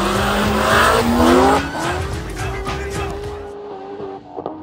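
BMW M240i and supercharged C6 Corvette accelerating hard away in a street drag race, engines rising in pitch together, then fading as the cars pull away down the street.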